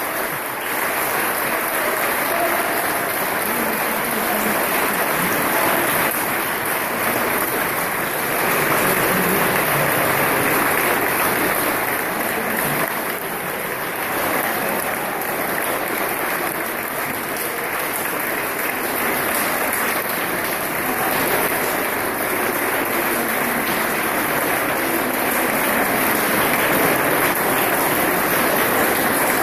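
Audience applauding: steady, dense clapping from a large crowd that keeps up without a break.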